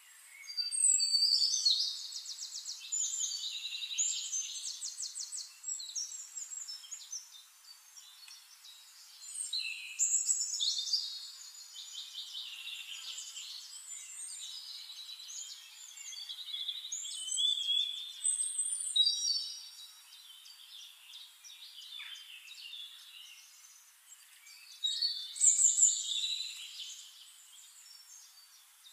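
Birds singing: bursts of high chirps and quick trills, loudest about a second in, around ten seconds in and near the end.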